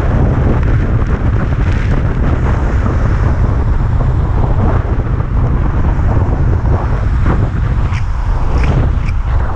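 Loud, steady wind buffeting on the microphone from riding an electric moped at road speed.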